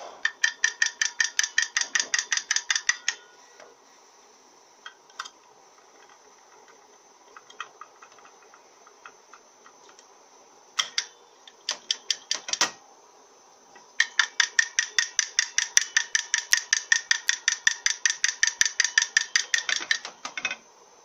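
Rapid light metal taps of a hand tool on the aluminium valve body of a Mazda FN4A-EL (Ford 4F27E) automatic transmission, about eight a second with a slight ring, working a stuck plug out of the main pressure regulator valve bore. A run of taps lasts about three seconds, a few scattered taps follow, then a second, longer run starts about two-thirds of the way through.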